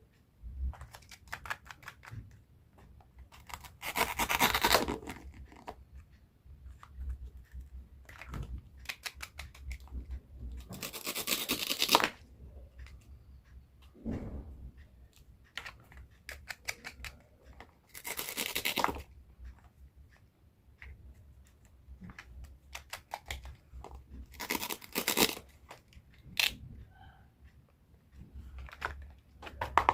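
Knife cutting fruit and vegetables on a cutting board: runs of quick chopping taps, with a longer tearing slice about every six or seven seconds.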